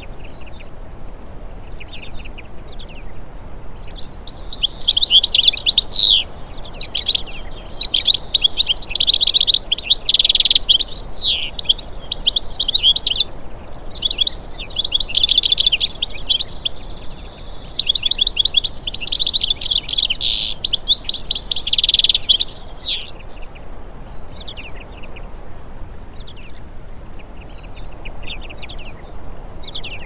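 Eurasian siskins singing: scattered soft chirps, then a loud, fast twittering song from a few seconds in until near the end, broken by short pauses, with one drawn-out steady note in the middle. The song then falls back to scattered chirps.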